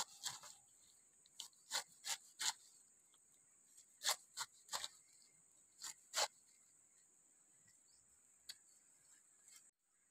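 Large knife slicing through peeled pineapple flesh: a series of short, crisp cuts in irregular clusters with pauses between them, over a faint steady high-pitched hiss.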